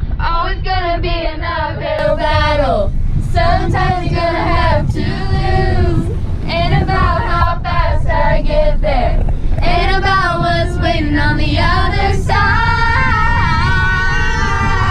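A group of girls singing together loudly inside a moving van, over the steady low rumble of the road.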